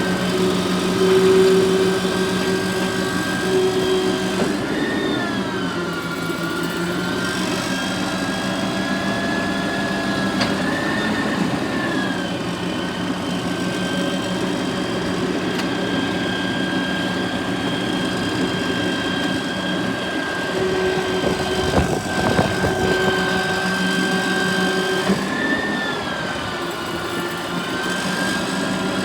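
Garbage truck engine running steadily, its hum swelling and dipping in pitch a few times, with a brief rattle about twenty-two seconds in.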